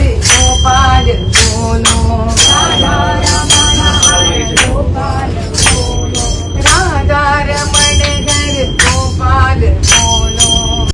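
A group sings a Hindu devotional bhajan to a regular percussive beat of jingling strokes. Under the singing runs the steady low rumble of the moving train, heard from inside the carriage.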